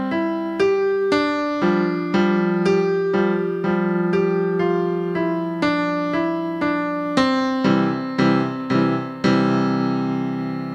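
Digital piano playing a slow piece: a melody note struck about twice a second over held low notes, each note ringing and fading away.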